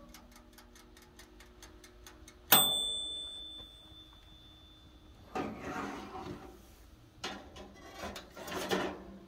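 Toaster oven's wind-up timer ticking fast, about four to five ticks a second, until its bell dings once about two and a half seconds in as the timer runs out and the ticking stops. The oven door is then opened with a metal clatter, and the wire rack rattles as a hand reaches in.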